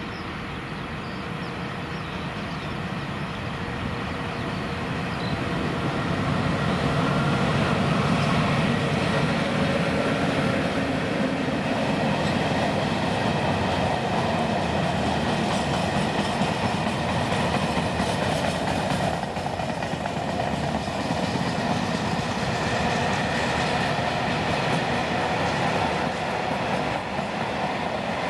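Freight train of empty open wagons hauled by a Škoda class 181 electric locomotive passing close by. It grows louder over the first several seconds as the locomotive arrives, then holds as a steady rolling rumble of the wagons, with their wheels clicking over the rail joints.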